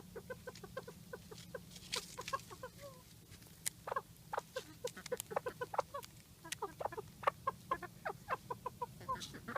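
Small bantam chickens clucking in many short, quick notes while being fed crackers, with a few sharp clicks among them. A steady low hum runs underneath.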